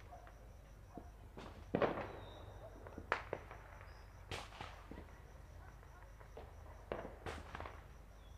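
Fireworks and firecrackers going off at a distance in irregular bangs and pops. The loudest bang comes about two seconds in and trails off in an echo; others follow near three, four and a half, and seven seconds.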